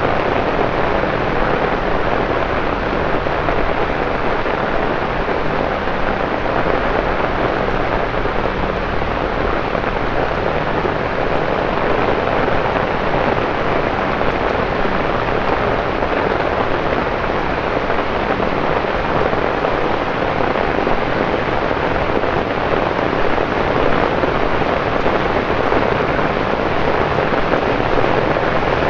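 Torrential rain pouring onto street pavement and road, a loud, dense, even hiss that holds steady throughout.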